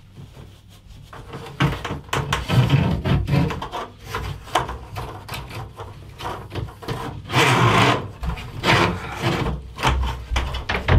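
Rustling, scraping and irregular knocks from hand work inside a stud wall: rock wool insulation being pushed aside and a flexible conduit rubbing against the OSB board and metal studs. It starts after a quiet second and is busiest about halfway through.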